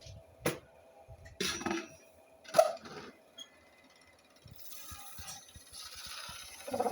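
Scattered sharp clinks and knocks of hard objects being handled, the loudest about two and a half seconds in, followed by a soft hiss.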